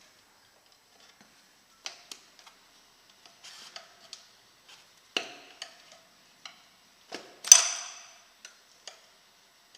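Steel tyre levers clicking and clinking against a motorcycle wheel rim as the tyre bead is levered on a bit at a time: scattered light taps, with one sharp ringing metal clank about seven and a half seconds in.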